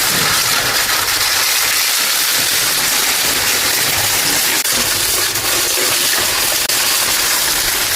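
A steady, loud hiss that holds evenly, with no clear tone or rhythm.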